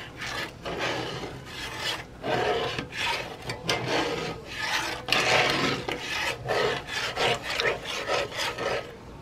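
Slotted metal spatula scraping across the bottom of a cast-iron skillet as it stirs a thin gravy, in repeated strokes about two a second.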